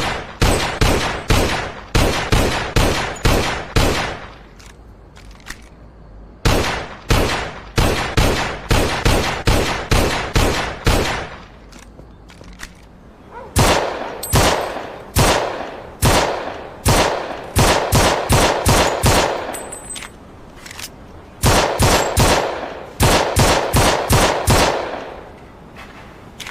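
Mauser C96 pistol gunshots, fired in strings of several shots with pauses of a second or two between strings; some strings come in quick succession.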